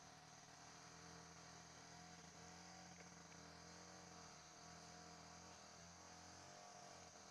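Faint outdoor background: insects buzzing steadily at a high pitch, over a low steady hum.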